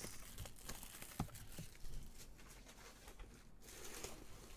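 Faint handling noise from a cardboard trading-card box turned in nitrile-gloved hands, with a few light taps, the clearest about a second in and again near two seconds.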